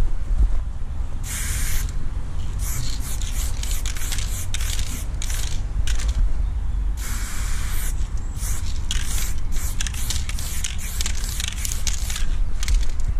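Aerosol spray paint can hissing in repeated bursts as lines are sprayed onto a wall. A longer spray comes about a second in and another around seven seconds in, with many short, quick bursts between and after them, over a steady low rumble.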